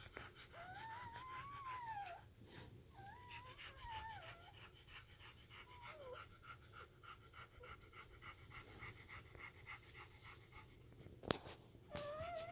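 Newborn German Shepherd puppies squealing and whimpering in thin, high cries that rise and fall, several in the first few seconds and another near the end, with a single sharp click shortly before the last cry.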